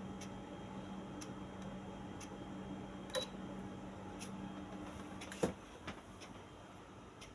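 A clock ticking about once a second over a steady low hum from the Electrolux air conditioner. About five seconds in there is a clunk and the hum stops.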